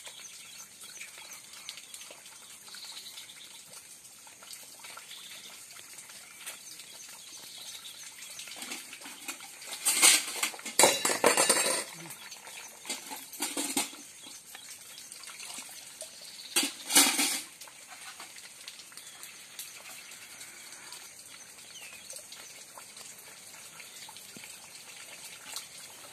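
Steel pots and utensils being washed by hand: water splashing and metal vessels knocking together, loudest in a two-second stretch near the middle and a shorter one a few seconds later.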